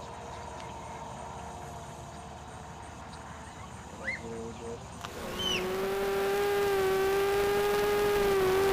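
Brushless motors and propellers of an Eachine Falcon 180 racing quadcopter whining, faint at first, then much louder and steady in pitch from about five seconds in as the quad comes close or throttles up.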